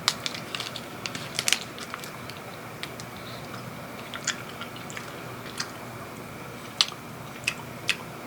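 A person chewing a dense protein bar of egg whites, dates and nuts, with scattered, irregular soft mouth clicks and crunches.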